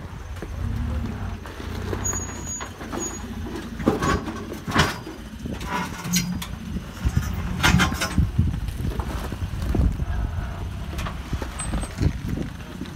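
Toyota Tacoma pickup's engine running low and steady as the truck crawls over rock, with several sharp knocks and crunches of tyres and underbody on the rock, a few seconds in.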